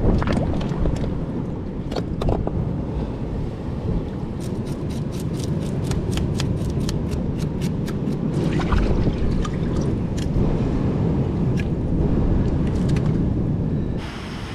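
Wind buffeting the microphone, with a quick run of sharp scraping clicks, about five a second for a few seconds mid-way, from a knife scraping the scales off a fish; scattered clicks follow.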